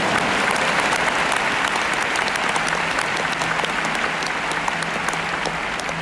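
Large arena crowd applauding at the end of a tennis point, a dense wash of clapping that swells at once and slowly dies down toward the end.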